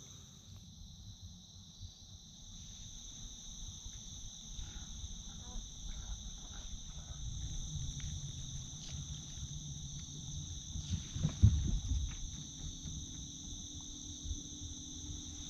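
A steady chorus of insects trilling in two even high-pitched bands, over a low rumble on the microphone with a few louder bumps about eleven seconds in.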